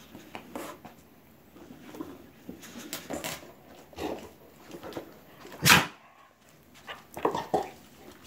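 A Rottweiler biting and mouthing at a toy football to work a hidden treat out: a run of short, scattered sounds, the loudest a sharp one a little past halfway and a quick cluster near the end.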